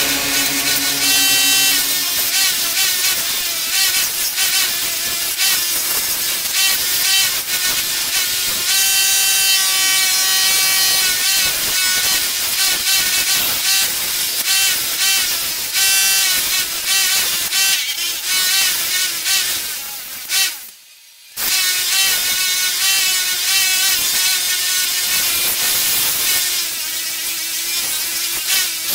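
Bülle bench polisher running while a small metal plate is pressed against its buffing wheel. Its whine wavers in pitch as the pressure on the wheel changes. The sound drops out for about half a second roughly two-thirds of the way through.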